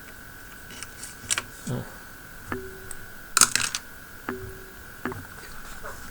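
Scattered small clicks and taps from hand tools and wire being handled on a soldering jig, the loudest cluster about three and a half seconds in. A steady high-pitched whine sounds underneath.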